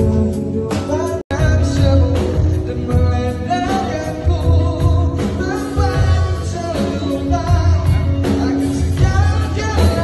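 Live pop-rock band playing a song cover with a male lead vocal over electric guitars, bass guitar, drums and keyboard. The sound cuts out for an instant about a second in.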